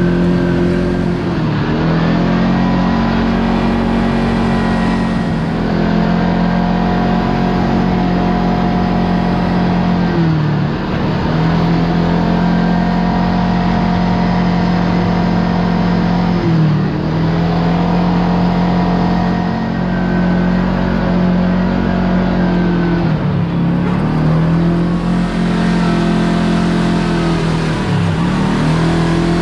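Kawasaki Teryx KRX side-by-side's parallel-twin engine pulling steadily on the move. Its note dips briefly and rises back about six times, every five or six seconds, as the throttle eases off and comes back on.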